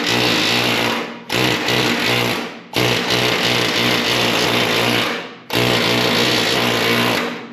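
Pneumatic air hammer (air chisel) chattering against the steel floor pan, breaking its spot welds. It runs in four bursts with short pauses between them.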